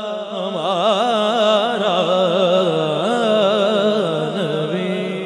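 Male naat reciter singing a long, drawn-out melismatic phrase unaccompanied into a handheld microphone, his held note wavering up and down in quick ornaments. A steadier held note sounds beneath it.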